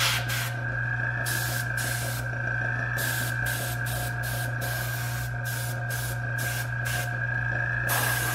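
Airbrush hissing in short, irregular bursts as its trigger is pressed and released, spraying paint, with some bursts running about a second. Under it runs the steady hum of a small air compressor.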